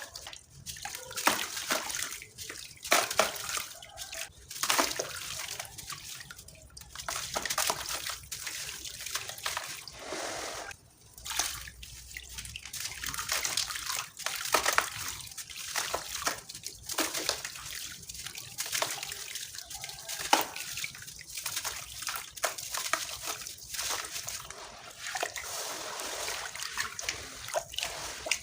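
Sand-cement pieces being crushed and crumbled, a continuous crunching and crackling full of small sharp cracks.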